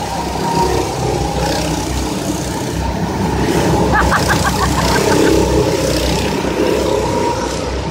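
Go-kart engines running as several karts drive past one after another, getting louder as they pass close about four to five seconds in.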